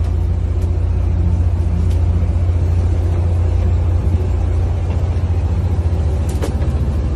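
Fishing boat's diesel engine running steadily, a low, pulsing drone, with a single sharp knock about six seconds in.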